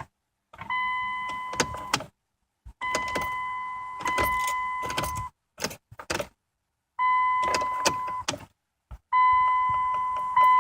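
Ignition key being turned again and again in a Dodge Journey that won't start: an electronic warning chime sounds as a steady beep in stretches about a second long, broken by sharp clicks of the key and switchgear.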